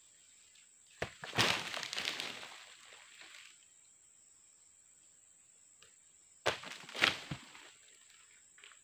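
Dry oil palm fronds and leaf litter rustling and crackling as they are handled, in two bursts: a longer one about a second in and a shorter one with sharp cracks about six and a half seconds in.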